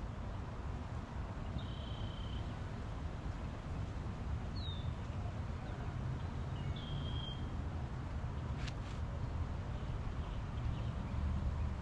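Outdoor pondside ambience with a steady low rumble, while a bird gives three short whistled calls. A brief sharp click comes a little past the middle.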